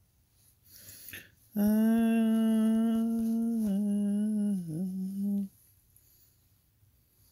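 A person humming one long, steady note for about four seconds, dropping a little in pitch near the end.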